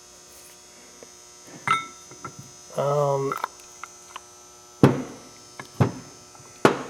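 Steady low electrical hum, with four sharp knocks and clicks about 1.7, 4.8, 5.8 and 6.6 seconds in. A short voiced sound comes about three seconds in.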